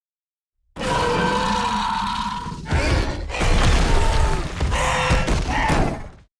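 Scorpios Rex creature roar sound effect, built from an Indominus Rex scream layered with pig squeals and an alligator bellow. It starts about a second in as one long, high, pitched call, then goes on in several shorter roaring phrases before cutting off near the end.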